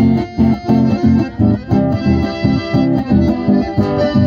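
Live folk band music from two button accordions and an acoustic guitar, amplified through a PA, with a steady pulsing beat and held accordion notes.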